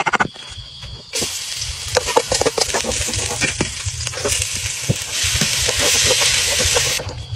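A cleaver chops a couple of times on a board, then hot oil sizzles in a wok as garlic fries and a spatula stirs and scrapes with small clicks. About five seconds in the sizzle grows louder as chopped vegetables go into the wok, then it cuts off near the end.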